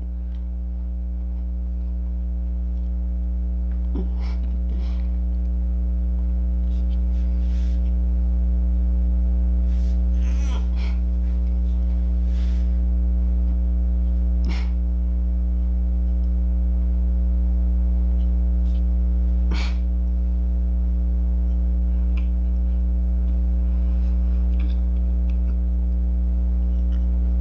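Steady low electrical hum, with soft crunching and mouth clicks from chewing dry gingerbread a handful of times.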